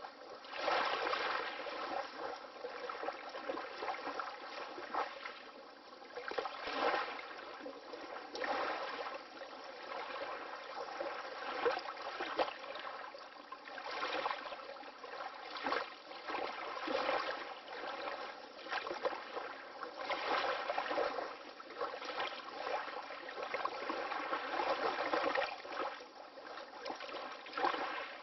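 Water lapping: small waves wash in uneven swells every one to three seconds, with a sharper slap now and then.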